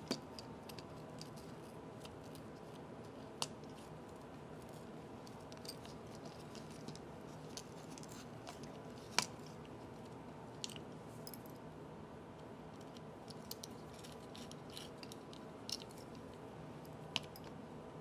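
Light clicks and ticks of a small screwdriver and plastic parts being handled as the circuit board is fitted and screwed back into a LeapFrog Tag reading pen, four clicks sharper than the rest, over a faint steady hum.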